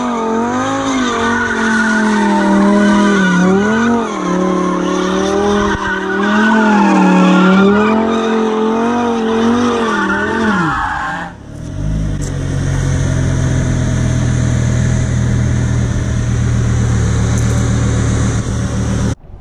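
Audi R8 V10 plus's naturally aspirated V10 held at high revs during donuts, its pitch rising and falling over and over while the rear tyres spin and squeal on concrete. About eleven seconds in the revs drop away and the engine settles to a low, steady rumble as the car rolls to a stop.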